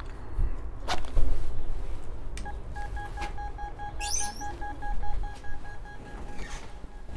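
Door-entry intercom beeping rapidly for about four seconds after a key fob is touched to its reader, the signal that the door lock is released; the beeping stops as the steel door is pulled open. A sharp click about a second in.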